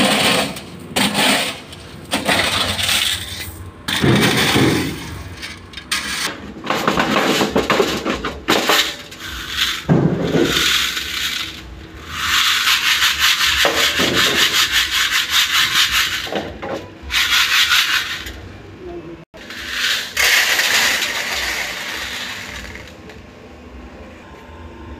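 Crushed-stone coarse aggregate rattling and scraping over the wire mesh of metal test sieves shaken by hand to grade it. It comes in repeated spells, the longest about halfway through, and dies down near the end.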